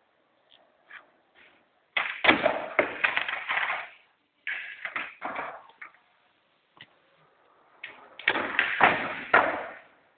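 Skateboard clattering on a smooth concrete floor: two loud runs of sharp knocks and slaps from the deck and wheels, one about two seconds in and another about eight seconds in, with a smaller run of knocks between them.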